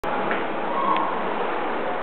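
Ceiling fan running with a steady whooshing hum, with a brief faint higher tone and a couple of light ticks about a second in.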